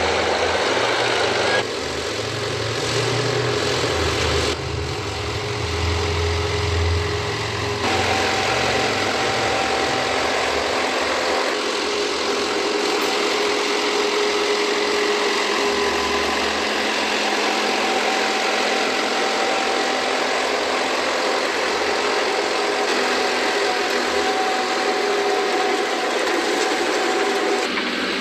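Engine of farm harvesting machinery running steadily, with its sound changing abruptly several times in the first twelve seconds or so.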